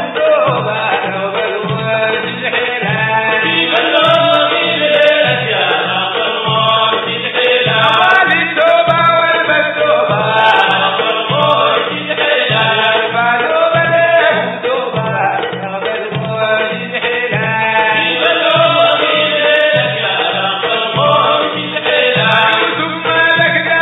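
Sudanese Sufi madeeh: men singing a praise song together over a steady beat of hand drums.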